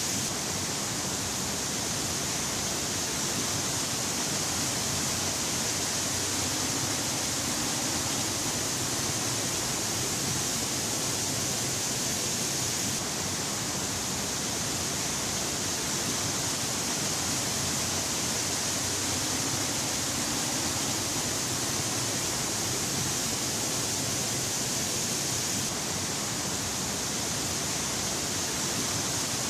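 The steady rush of Aberdeen Falls, a 98 m horsetail waterfall, pouring onto rock and into its plunge pool. Its tone shifts slightly twice, about 13 and 26 seconds in.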